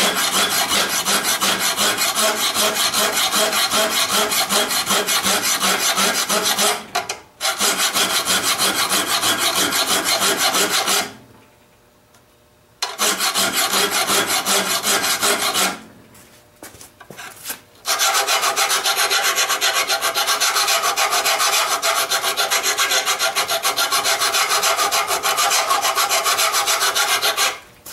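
Hand file being drawn quickly and steadily across a steel lawn mower blade held in a vise, in four long runs of strokes with short pauses between them. This is the sharpening of a dull blade whose cutting edge had worn round.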